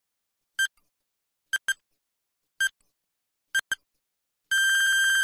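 Quiz countdown-timer sound effect: short electronic beeps about once a second, alternating single and double, then a longer steady beep about four and a half seconds in as the time runs out.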